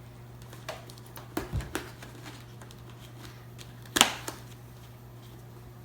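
Plastic clicks and snaps from the Shoei GT-Air helmet's interior pads being unclipped and pulled out: a few small clicks early, then one sharp loud snap about four seconds in, followed by a smaller click.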